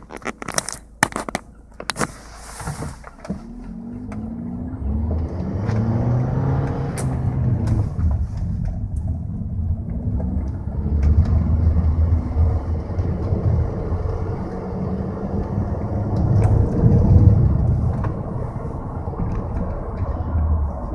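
A handful of sharp clicks and knocks, then the 2003 Volkswagen Jetta 1.8T pulls away and drives, its turbocharged four-cylinder engine rising in pitch under the low rumble of road noise. A few sharp ticks show up while it drives.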